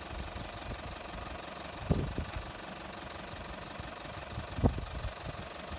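A motor running steadily at idle with a knocking rumble, and two louder thumps, one about two seconds in and one near the end.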